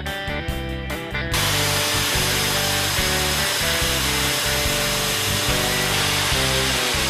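Power drill boring into wall tile with a vacuum hose drawing off the dust: a steady, loud rushing noise that starts suddenly about a second in, over guitar music.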